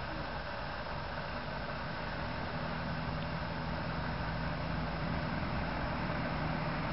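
A steady low engine hum that grows a little stronger a few seconds in, over a constant rushing hiss.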